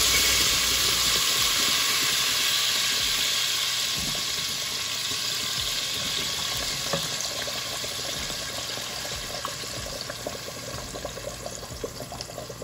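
Blended pepper purée poured into hot oil in a stainless steel pot, sizzling hard and then gradually dying down, with scattered crackles and pops showing more toward the end.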